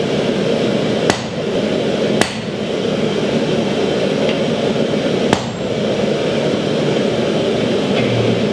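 Three separate hammer blows on steel at the anvil, forging a hammer head: one about a second in, one a second later, and one about three seconds after that. All three sound over a steady rushing background noise.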